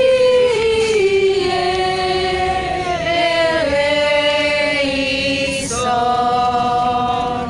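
Several voices singing together in long held notes. The melody steps from one sustained pitch to the next, with two short breaks between phrases, about halfway through and again later.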